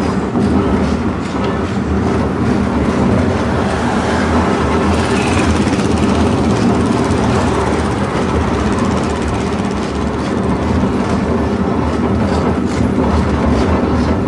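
Horse tramcar running along its street rails: a steady rattle and rumble of the car's wheels and body, with a few sharper clicks near the end.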